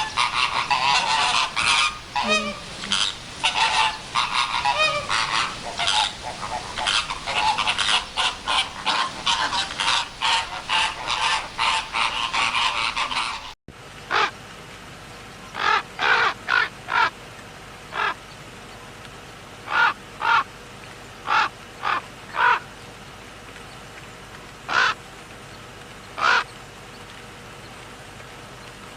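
Waterfowl calling: a dense chorus of many overlapping short calls, then, after an abrupt cut about halfway through, single short calls spaced a second or two apart.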